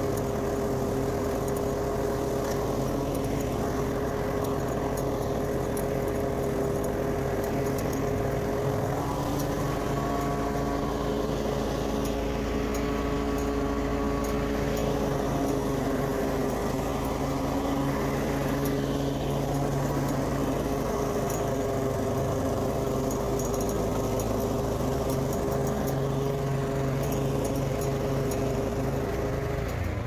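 Walk-behind gas lawn mower with a Briggs & Stratton engine running steadily while cutting grass; its engine note drops near the end.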